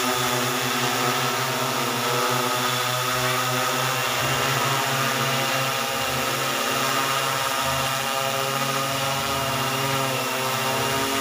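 DIY six-rotor spray drone hovering, its motors and propellers giving a steady buzz made of several level tones that hold without rising or falling.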